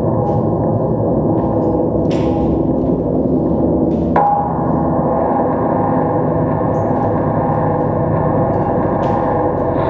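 Droning music of sustained, metallic gong-like ringing tones, with a fresh strike about four seconds in that starts a new ringing tone.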